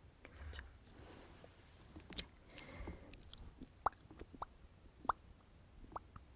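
Close-miked ASMR mouth sounds: wet lip smacks and tongue pops, about five sharp ones spaced roughly a second apart, after a soft brushing noise in the first couple of seconds.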